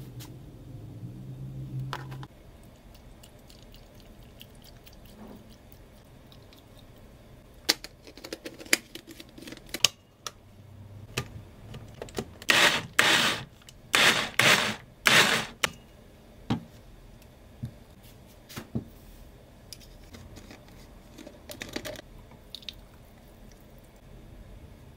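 Liquid poured into a blender jar for about two seconds, then clicks as the jar is fitted to a small portable blender. The blender then runs in several short, loud bursts of about a second each, blending chunks of avocado and strawberry with coconut milk.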